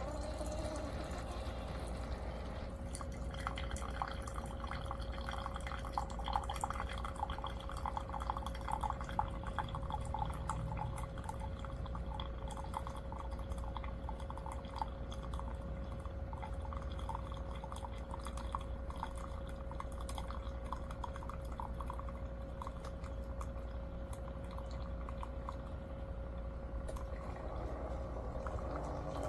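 CHULUX slim single-serve coffee maker brewing: a steady hum with coffee dripping and trickling into the cup. The dripping is busiest in the first several seconds and then thins out.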